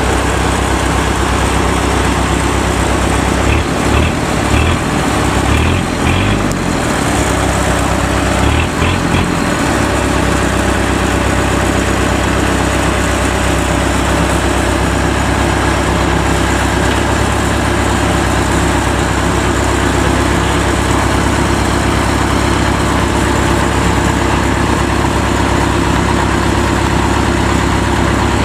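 Kubota DC-93 combine harvester's diesel engine running steadily as the tracked machine crawls along. Its low engine note wavers unevenly between about four and ten seconds in, then holds steady.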